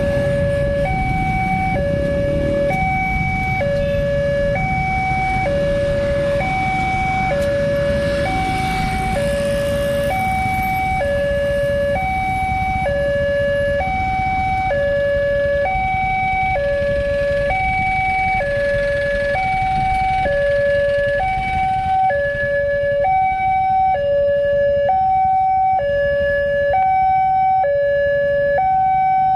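Railway level-crossing warning alarm sounding a two-tone electronic signal, alternating steadily between a lower and a higher tone about once a second, which signals that a train is approaching and the barriers are closing or closed. Under it runs a low rumble that eases off about three quarters of the way through.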